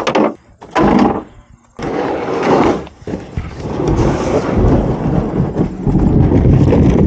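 A ratchet strap being unhooked, then a plastic kayak hull dragged over a pickup's ribbed bed liner. Two short scraping rustles, then a long, loud scraping rumble from about three seconds in.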